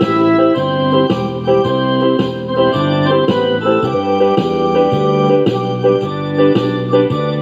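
Background music on an electronic keyboard, with sustained organ-like chords over a steady beat of about two notes a second.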